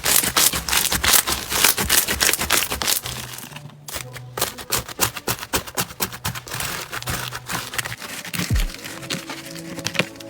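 Crunchy slime being squeezed and pressed by hand, a dense run of crackling pops and clicks that pauses briefly a little before the halfway point, over soft background music.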